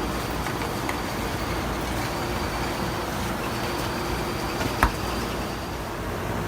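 Steady low background rumble with one sharp knock a little before the end.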